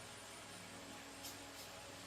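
Near silence: faint room hiss with a couple of faint light ticks.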